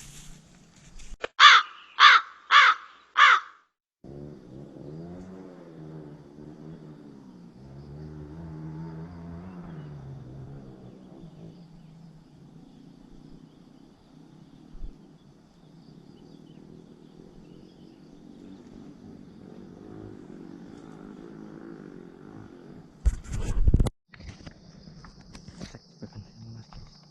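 A bird gives four harsh, caw-like calls in quick succession. A low wavering drone follows for most of the rest, with a few loud knocks near the end and then a steady high-pitched whine.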